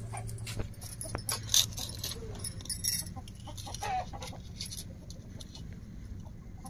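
Perforated metal ladle scraping and knocking against a metal pot as freshly cooked soya chunk biryani is turned over, in scattered clinks and scrapes. Short clucking calls sound in the background.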